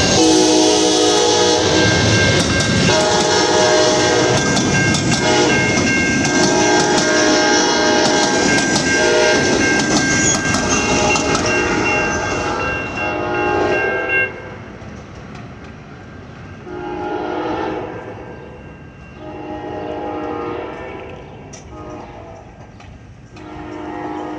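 Amtrak passenger train led by two Siemens SC-44 Charger diesel locomotives passing close, with repeated horn blasts over the rumble and clickety-clack of the cars. About fourteen seconds in the rumble drops away suddenly, and three fainter horn blasts follow a few seconds apart.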